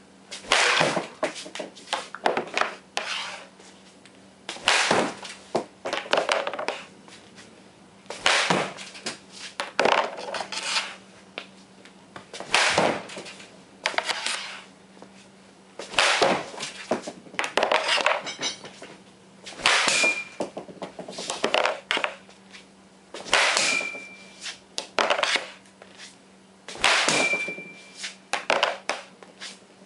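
Ice hockey slap shots taken off a melamine shooting board, one every few seconds: each a sharp crack of the stick blade slapping the board and puck, followed by a short clatter of further knocks. A brief high ringing follows three of the later shots.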